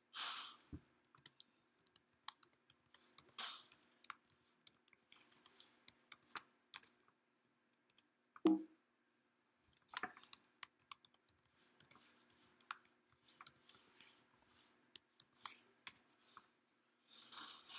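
Tarot cards being handled, shuffled and laid out by hand: a run of light, irregular clicks and snaps of card stock, over a faint steady hum.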